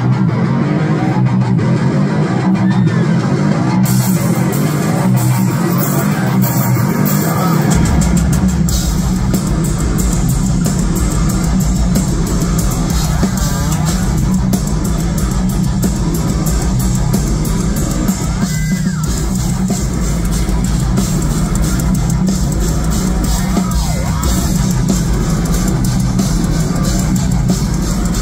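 Heavy metal band playing live through a concert PA, heard from within the crowd: distorted electric guitars and a drum kit. The sound brightens about four seconds in, and a heavy low bass comes in about eight seconds in.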